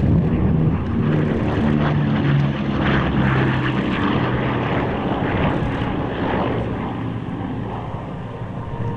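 Aircraft engine running at air-show flying, its steady drone shifting in pitch and slowly fading.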